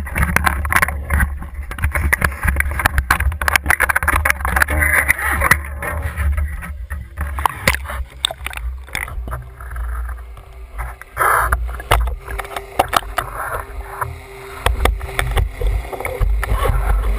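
Boat and water noise: a steady low rumble with many scattered clicks and knocks. The sound is open-air at first, then duller once the camera is underwater.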